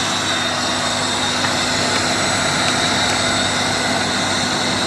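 Modified 3 hp (2.2 kW) electric motor running steadily at about 2800 rpm: an even hum with a high whine above it.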